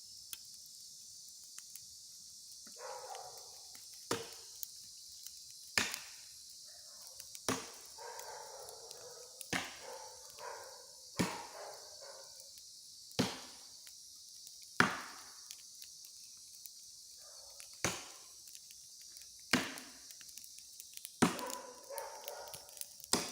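Repeated chopping blows of a tool striking wood, about one every one and a half to two seconds, with rustling noise between some of the strokes. A steady high-pitched cicada drone runs underneath.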